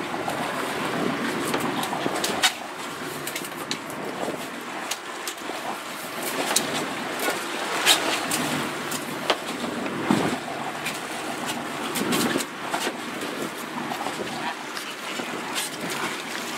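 Wind and sea noise aboard a fishing boat: a steady rush of wind and water against the hull, broken by a few short sharp knocks.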